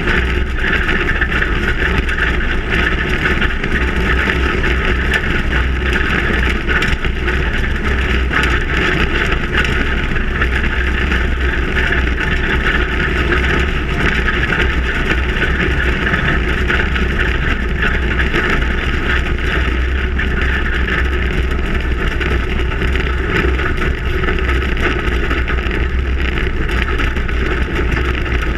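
Steady engine, tyre and wind noise of a long-travel Ford Raptor prerunner truck driving over desert dirt, picked up by a camera mounted low on the truck.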